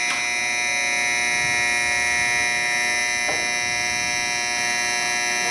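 Shinkansen platform departure bell ringing as a steady, continuous electric buzz of many tones at once, the signal that the train's doors are about to close and it is about to leave.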